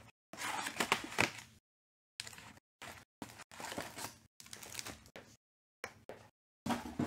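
A cardboard trading-card hobby box being handled and opened, with foil-wrapped card packs sliding out and being set down on a table. Short rustling and scraping bursts, the loudest about a second in, each cutting off abruptly into silence.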